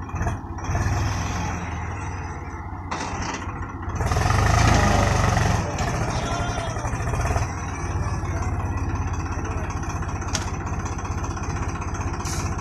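Diesel farm tractor engine running under heavy load as it tries to haul a trailer full of soil, its rear tyre dug into the earth. About four seconds in it is revved much harder for a few seconds, then drops back to a steady run.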